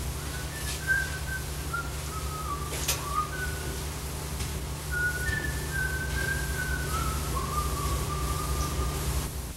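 A person whistling a tune: a string of short and held notes that step up and down. Under it is a steady low electrical hum, and two sharp knocks come about one and three seconds in.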